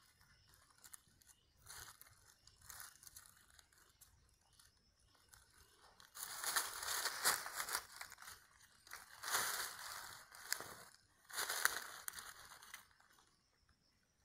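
Dry fallen leaves crackling and rustling under a person shifting about while fastening strapped metal climbing irons to rubber boots. Faint crackles at first, then three louder spells of rustling in the second half.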